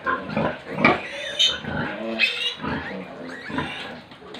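A sow and her nursing piglets grunting in a run of short calls, with two higher squeals from the piglets in the middle.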